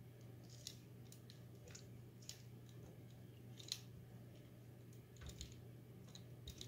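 Faint, scattered clicks and taps of metal kitchen tongs working wet dyed wool roving in an aluminium baking pan, about one every second or so, the clearest a little before the halfway point, over a low steady hum.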